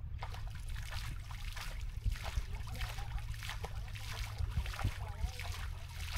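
Water splashing and sloshing in quick, irregular bursts as a cast net is hauled in through shallow pond water, over a steady low hum.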